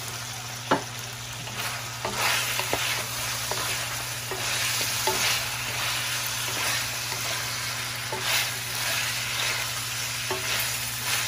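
Diced pork sizzling in hot oil in a metal wok while a wooden spatula stirs it, scraping across the pan in repeated strokes; a sharp tap about a second in.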